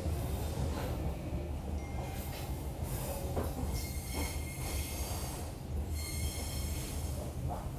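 Inside a KA Walahar Ekspres passenger coach on the move: a steady low rumble of the wheels on the rails, with faint high wheel squeals now and then and a few light knocks.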